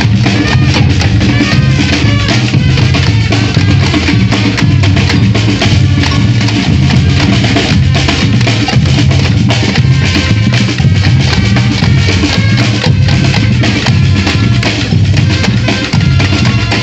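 Batucada-style street percussion band playing a steady, driving rhythm: deep bass drums pulsing under dense, sharp snare and block-like hits.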